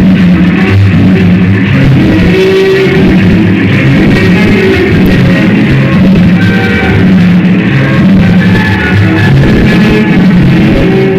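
Loud music with guitar and drums, played over a sonidero sound system.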